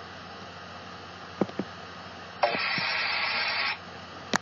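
Police radio scanner hissing between transmissions: a steady static hiss that gets louder for about a second past the middle, with a few faint clicks and one sharp click near the end.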